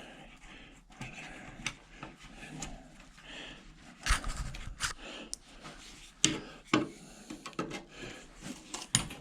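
Scattered clicks, knocks and scrapes of hand tools working screws out of a hot beverage dispenser's sheet-metal cabinet, with a few sharper knocks about four and six seconds in.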